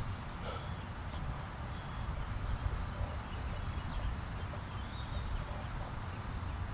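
Low rumbling background noise, with a faint steady high tone starting about a second in.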